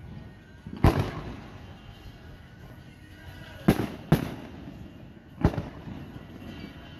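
Aerial firework shells bursting overhead: four sharp booms, one about a second in, two close together near the middle and one a little later, each trailing off in an echo.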